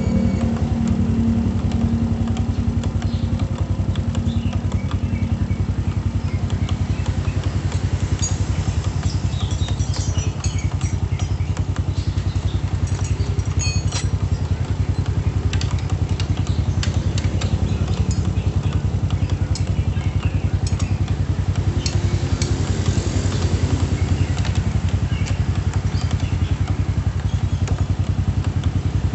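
Honda Supra's single-cylinder four-stroke engine idling steadily, heard close at the clutch-side crankcase cover, with light scattered ticking over the even run.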